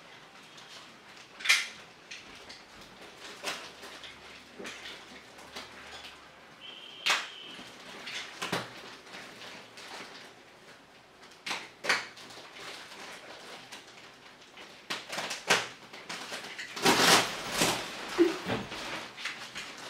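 Clear plastic wrapping crinkling and rustling as a rolled memory-foam mattress is unwrapped and unrolled, with scattered clicks and knocks of handling. The sounds come louder and denser near the end as the mattress unrolls.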